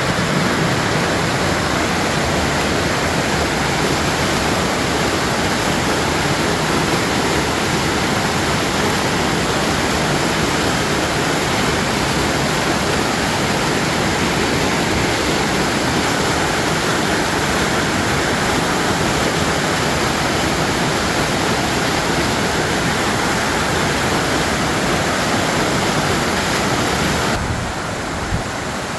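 Waterfall rushing: a steady, dense hiss of falling water spread evenly from low to high pitch. Near the end it drops a little in level and loses some of its top.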